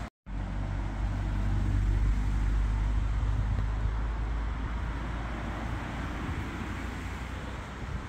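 Road traffic circling the roundabout, a vehicle passing with a low rumble that swells to its loudest about two seconds in and then slowly fades. The sound cuts out for a split second at the very start.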